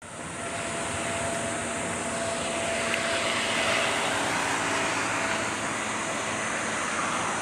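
Airbus A330-200's twin jet engines running at taxi power as the airliner rolls along the taxiway: a steady jet rush with a faint held tone, fading in at the start.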